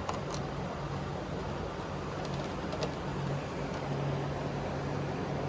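Steady low machine hum with a few faint, short clicks.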